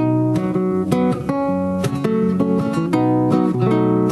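Acoustic guitar playing an instrumental passage of a bard song, a quick run of plucked notes and chords.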